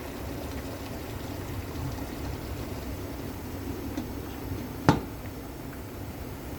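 Steady low bubbling noise of a pan of spinach-chicken gravy simmering, with one sharp knock about five seconds in.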